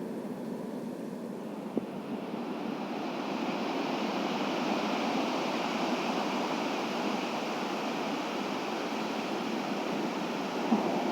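Atlantic surf on a sandy beach: a steady wash of breaking waves, swelling louder and hissier about two seconds in as a wave breaks and runs up, then holding.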